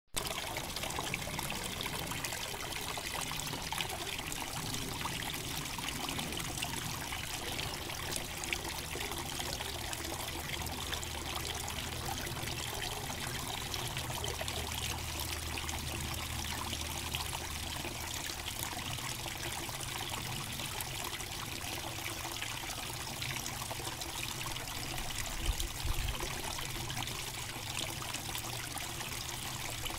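Water trickling and pouring steadily from a small waterfall spout into a lined pond, with a couple of low thumps near the end.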